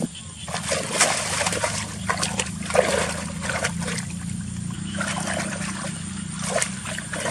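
Water splashing and trickling in irregular small bursts over a steady low hum.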